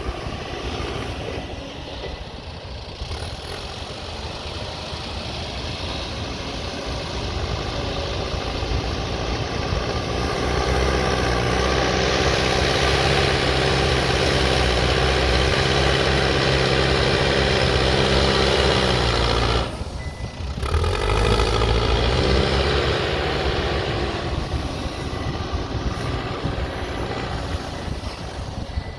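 Backhoe loader's diesel engine working under load, building to full power about a third of the way in, dropping off sharply for a moment a little past the middle, then picking up again and easing off near the end.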